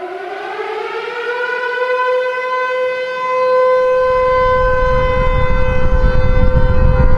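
Civil defense siren winding up, its wail rising in pitch and then holding steady, sounding an attack warning. About halfway through, a low rumbling noise grows beneath it.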